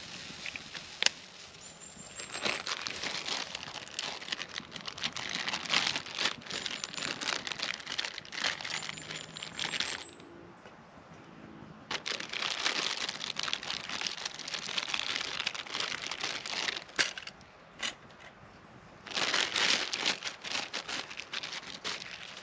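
Plastic burger packaging crinkling and rustling as it is handled, in long bursts with short pauses between them.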